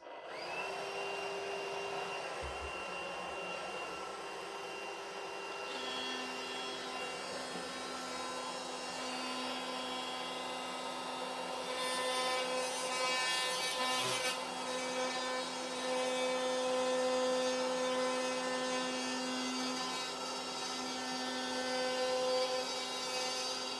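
A power tool running steadily as it cuts through drywall, with a continuous hum of several steady tones that grows a little louder about halfway through.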